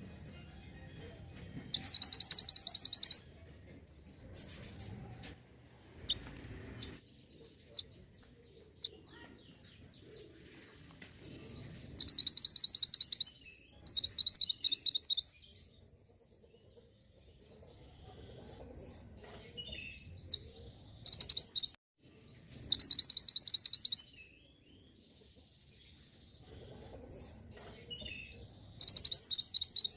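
A mantenan gunung songbird sings short, fast, high-pitched trilling phrases of rapidly repeated notes, six times with pauses between. Fainter chirps come in the gaps. This is a recording used to provoke caged birds of the same kind into singing.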